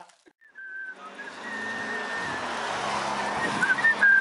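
Road traffic running past, with a person whistling a tune in short high notes over it. It starts about a second in, after a near-silent cut.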